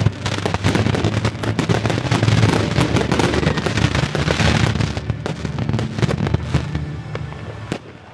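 Fireworks barrage: a rapid, dense run of shell bursts and crackling. It thins out about five seconds in and fades away near the end.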